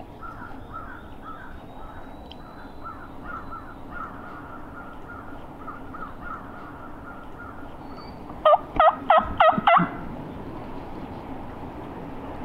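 Hunter's turkey call sounding a series of five loud hen yelps, each note breaking sharply down and back up in pitch, starting about eight and a half seconds in. Faint repeated bird notes sound in the background before it.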